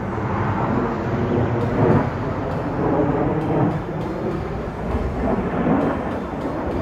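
Jet roar from a formation of Blue Angels F/A-18 Super Hornets in flight: a loud, rumbling noise that swells and fades unevenly.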